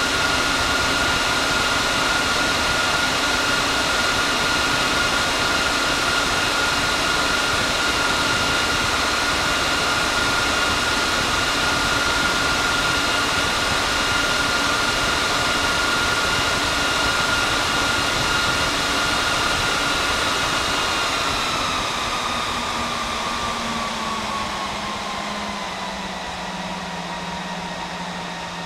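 Cooling fans of a Dell PowerEdge R730xd rack server running at high speed with a loud, steady jet-like whine. About two-thirds of the way through, the fans step down in speed and the whine falls in pitch and gets quieter, as the server's fan control slows them after start-up.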